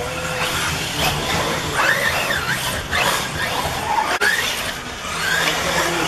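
Electric RC off-road buggies racing on a dirt track: their motors whine, rising and falling in pitch with the throttle, and there is a sharp knock about four seconds in.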